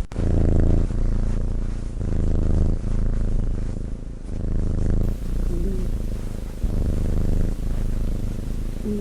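Sleeping cat breathing with a low purring, snoring rumble that swells and fades with each breath, a little over two seconds per breath. A short faint squeak comes a little past halfway.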